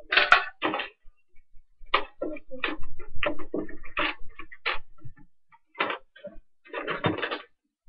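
Plastic toy wrestling-ring accessories being handled: a run of light clicks and knocks as the pieces are picked up and set down, with short bursts of rustling near the start and near the end.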